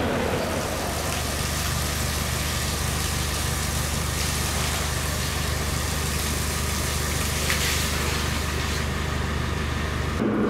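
Water from a hose spraying onto a wooden cutting table, a steady hiss over a steady low engine hum. The spray cuts off just before the end.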